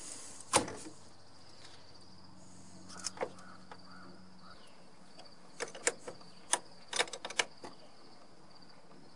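Car battery cable clamps being set back onto the terminal posts and tightened with a ratchet: a sharp metal clack about half a second in, two clicks around three seconds, then a quick run of clicks a little past halfway. Crickets chirp steadily behind.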